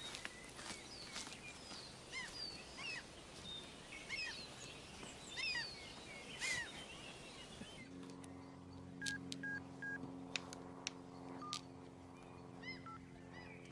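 Birds chirping and singing over quiet outdoor ambience. About eight seconds in, soft background music enters: a sustained low chord with a few short, high single notes.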